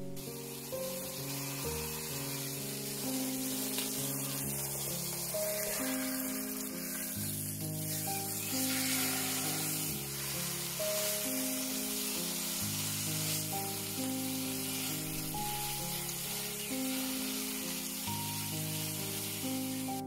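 Beef roast searing in hot butter oil in a multi-cooker pot, sizzling steadily as it is sealed brown on all sides. Background music of slow, held notes plays over it.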